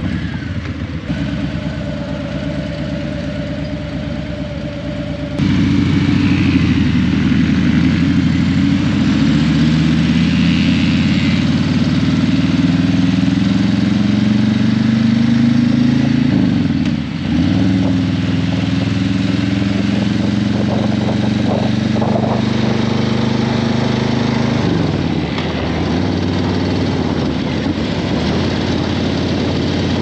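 Harley-Davidson Breakout 117's Milwaukee-Eight 117 V-twin running through a Vance & Hines Eliminator 300 slip-on exhaust while riding. It gets louder about five seconds in, climbs in pitch under acceleration, and twice drops briefly in engine speed before settling again.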